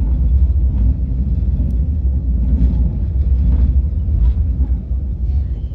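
Steady low rumble of a KTX high-speed train under way, heard inside the passenger cabin, easing a little near the end.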